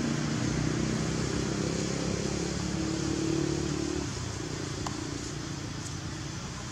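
A motor vehicle's engine running as a steady low hum over a background hiss, fading about four seconds in.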